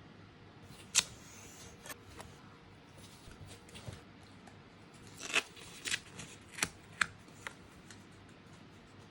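Stickers and paper being handled for a sticker collage: sheets rustling and stickers being peeled and pressed down. Sharp clicks and taps come through it, the loudest about a second in and a cluster from about five to seven seconds in.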